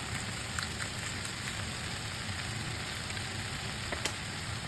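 Ground pork with potatoes and carrots sizzling in a pan: a steady hiss with scattered small crackles and pops.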